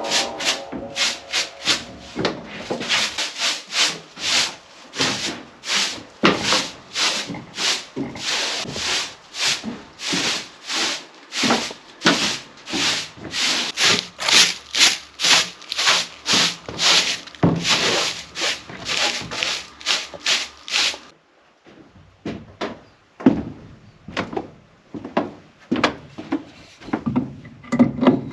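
Hand tool worked back and forth on wood in steady rhythmic strokes, about two a second, stopping abruptly about 21 s in. A few scattered light knocks on wood follow.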